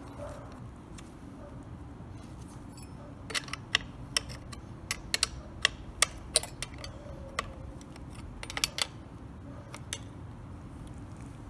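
Scattered sharp metallic clicks and clinks, about a dozen between about three and nine seconds in: a scrench being worked on the bar nuts and chain tensioner of a Stihl MS 461 chainsaw.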